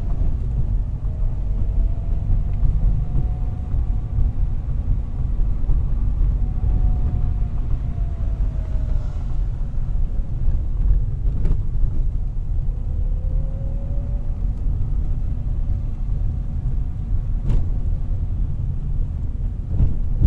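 Car driving on city streets: a steady low rumble of engine and road noise, with a faint whine that rises and falls in pitch as the car speeds up and slows. Two short sharp clicks, one about halfway through and one some six seconds later.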